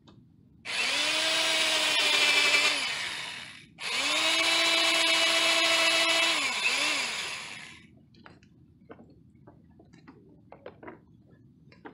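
Angle grinder with a wire wheel scouring paint and rust off a car's steel rear body panel down to bare metal. It runs in two bursts of about three and four seconds, the motor spinning up at the start of each and winding down as it is let off. A few faint clicks follow.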